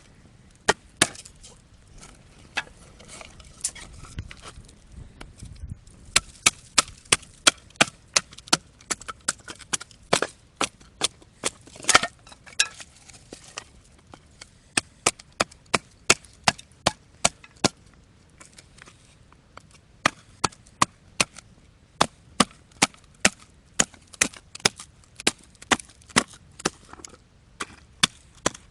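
Firewood being split into kindling: repeated sharp wooden chopping knocks, about two or three a second, in runs with short pauses between them.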